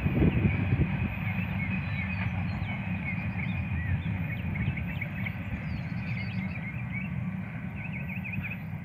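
Norfolk Southern freight train cars rolling past with a steady low rumble that eases off slightly, while birds chirp over it from about two seconds in.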